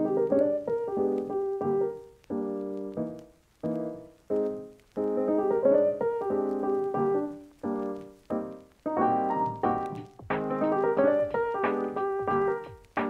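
Background piano music: chords and short melodic phrases, each struck note dying away before the next.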